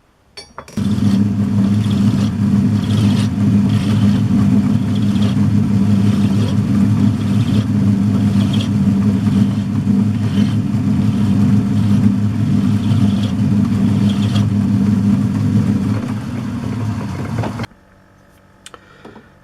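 Old metal-turning lathe and its motor running steadily with a low hum and faint regular ticks from the drive. It starts about a second in and cuts off sharply near the end.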